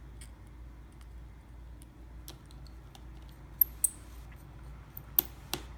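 Light clicks and taps of small metal repair tools on an opened iPhone's internal parts: faint ticking throughout, with four sharper clicks in the second half.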